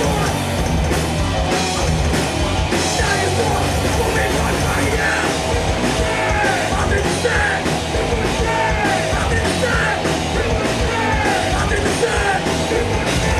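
Live rock band playing loud, heavy music with distorted electric guitars, bass and drums, and yelled vocals over them.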